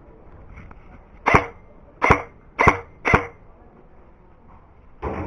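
Airsoft rifle firing single shots: four sharp cracks about half a second apart, starting about a second in, then a fifth near the end.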